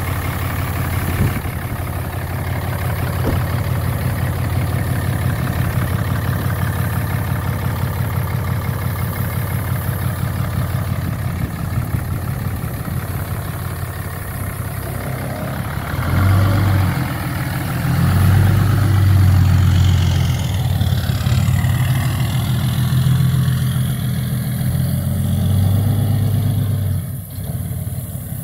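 A 2008 Dodge Ram 3500's 6.7-litre Cummins turbo-diesel inline-six idles steadily. From a little past halfway it rises in several surges as the truck is driven off.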